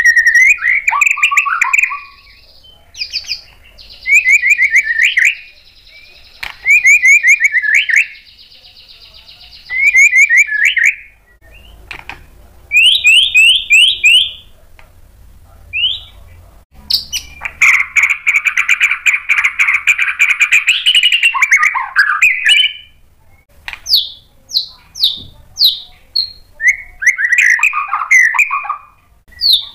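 White-rumped shama (murai batu) singing in short phrases of rapid whistled notes with brief pauses between them. About two-thirds through comes a longer, denser run of notes, and near the end a string of quick falling notes.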